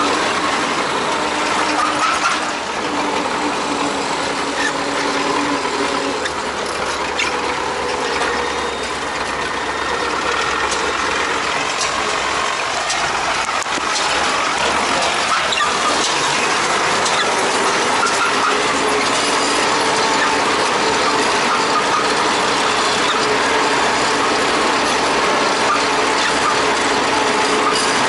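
Tractor driving along with its engine running and a steady, dense mechanical rattle and clatter of gears and linkages.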